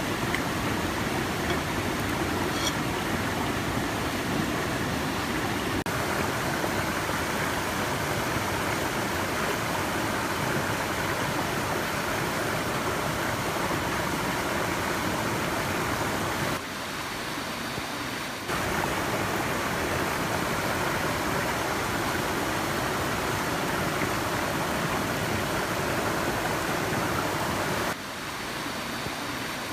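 Steady rushing of a stream, an even wash of water noise that dips a little in level about halfway through and again near the end.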